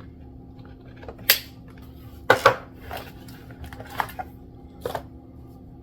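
A handful of short, sharp clicks and knocks of hard plastic being handled and set down on a table, the loudest two about a second apart near the start, as a small RC boat's transmitter is picked up and shown.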